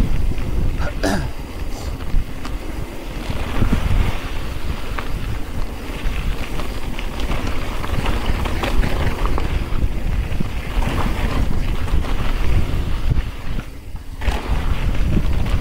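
Wind rushing over the camera microphone on a fast mountain bike descent, with Maxxis Minion DHR II knobby tyres crunching over loose, marble-like gravel and the bike rattling, a sharp click about a second in. The wind noise drops briefly near the end.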